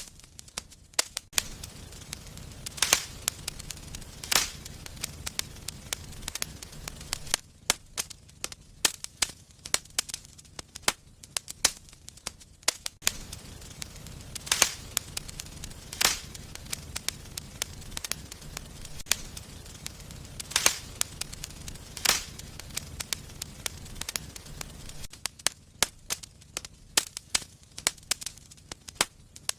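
Wood fire burning in a fireplace, crackling steadily with frequent sharp pops from the burning logs, about six of them louder than the rest. A low rumble of the flames sits underneath and comes and goes.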